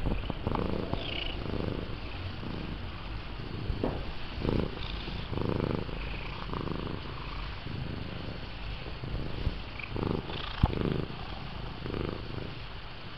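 Lynx point Himalayan cat purring close up, the purr swelling and fading in a steady rhythm about once a second, with a few short knocks.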